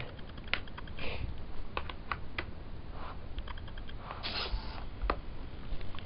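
Scattered light clicks and knocks as a USB cable is plugged into a laptop. A short whirr about four seconds in comes from the robot's hobby servos moving its arm into the starting position as the Arduino powers up.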